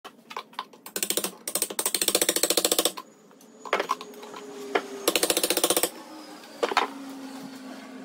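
A wood chisel scraping and chattering along the rough cut edge of a particleboard cabinet side, in two quick rattling runs, with a few single sharp knocks between them.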